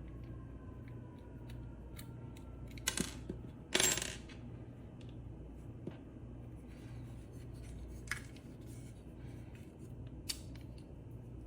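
Small hard parts being handled: scattered light clicks and metallic clinks, the loudest two about three and four seconds in, over a steady low hum.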